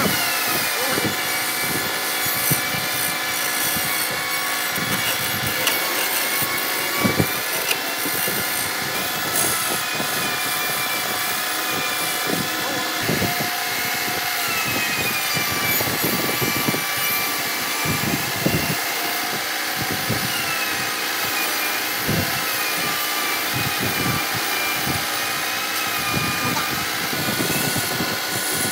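Wood lathe spinning a wooden spindle while a hand-held chisel cuts into it: a steady hiss of cutting with irregular scraping knocks as the tool bites, and a high whine that wavers in pitch runs through it.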